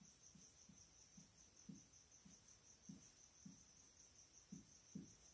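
Near silence, with a faint, steady, high-pitched pulsing chirr throughout and soft low taps about twice a second.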